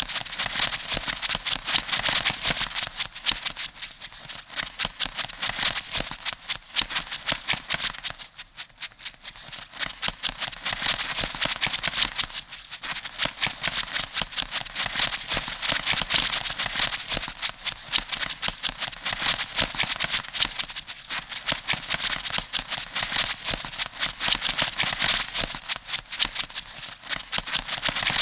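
Rapid, dense clicking and rattling, the crab-scuttling sound effect of a cat video, going on without pause except two brief lulls, about 8 and 12 seconds in.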